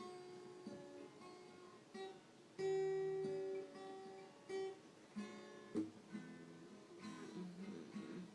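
Acoustic guitar being played, a tune of picked notes and strums, with one note held loudest about two and a half seconds in.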